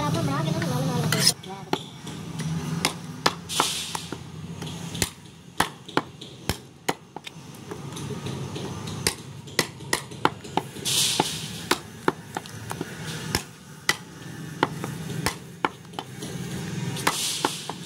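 A meat cleaver chopping goat meat and bone on a wooden log chopping block, in a series of sharp, irregular chops.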